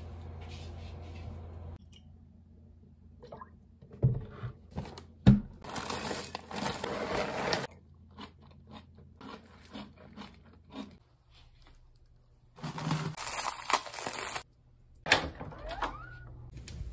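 Someone eating from a bowl with a spoon: crunchy chewing and spoon-on-bowl sounds, with scattered knocks and clatters, the loudest a sharp knock about a third of the way in. A low steady hum at the start cuts off after about two seconds, and near the end there is the clatter of a door being opened.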